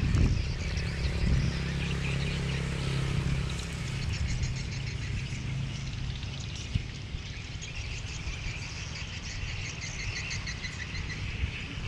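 High chirping and trilling from insects and small birds in tall grass, with a low rumble on the microphone over the first few seconds.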